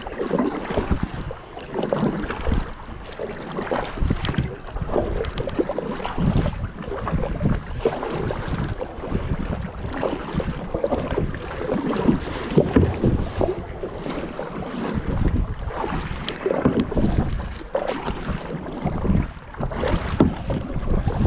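Kayak paddle strokes: the blades dipping and splashing in the water in a repeated rhythm, with water washing against the hull. Wind buffets the microphone with a low rumble throughout.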